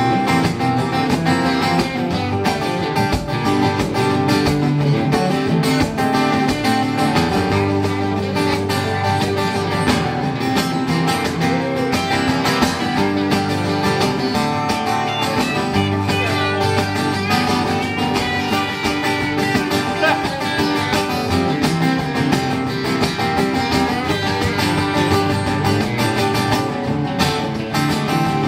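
Instrumental break in a country song: guitars playing steadily with no singing.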